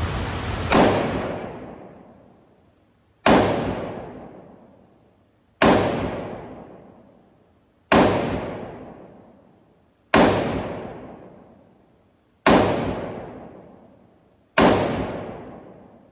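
AR-15-style rifle in 5.56 firing seven single shots, one about every two and a half seconds, each followed by a long echoing decay.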